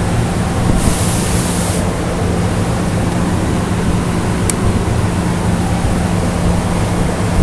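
Steady noisy roar with a low hum from a CNC profile cutting machine starting a cut in steel plate, with a burst of sharper high hiss lasting about a second, about a second in, and a single click a little past the middle.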